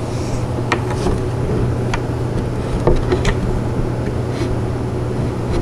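Steady low hum with a few faint clicks and light taps from wooden furniture panels and screws being handled and lined up.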